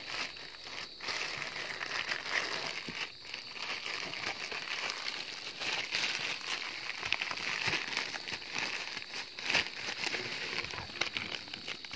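A plastic courier mailer bag crinkling and rustling as hands open it, with sharp crackles throughout and one louder crack near the end.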